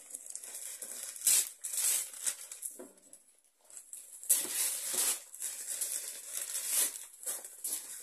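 Gift wrapping paper crinkling and tearing as a present is unwrapped, in a run of rustling bursts with a short lull about halfway through.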